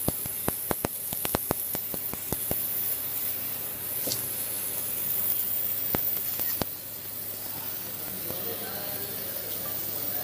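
Fiber laser cutting a silver strip fed by an automatic feeder: a steady high-pitched hiss. It is broken by a quick run of sharp clicks over the first couple of seconds and a few single clicks later.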